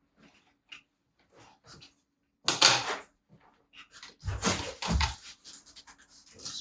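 Plastic and metal parts of a DJ controller's jog platter being handled during disassembly: scattered clicks and scrapes, a loud scrape about two and a half seconds in, and a couple of heavier knocks around five seconds in.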